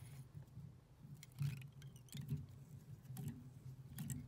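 Faint handling sounds of tying off thread with a whip finish knot on a fly-tying hook: scattered light clicks and rustles of thread and fingers over a steady low hum.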